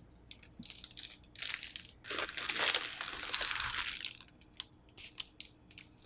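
Plastic bubble mailer being opened and handled: crinkling and crunching, with short rustles at first and the loudest, denser crinkle lasting about two seconds in the middle, then a few light clicks and crinkles as the contents are pulled out.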